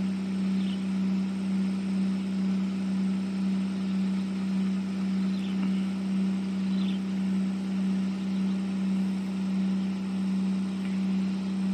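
A steady low motor hum with a gently pulsing loudness, with a few faint bird chirps over it.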